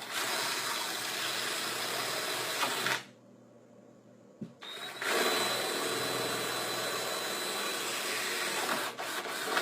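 Power drill boring holes through a new vinyl shutter, in two steady runs: about three seconds, a short pause, then a second run starting about five seconds in.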